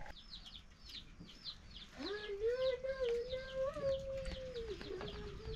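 Chickens: rapid high peeping, about four or five peeps a second, with a long drawn-out call held for about three seconds from about two seconds in.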